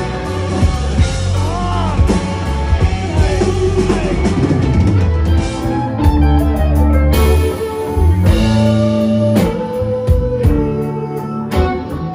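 Rock band playing live: electric guitar over a drum kit, with a cymbal crash about seven seconds in.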